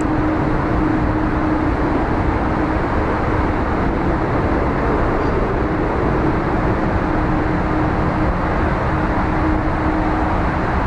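Steady, even rumbling noise with a constant low hum running through it, with no rise or fall in loudness.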